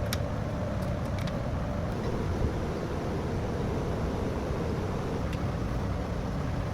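Steady low rumble of workshop background noise, with a few light clicks as hydraulic lifters are set into the lifter bores of a HEMI V8 block.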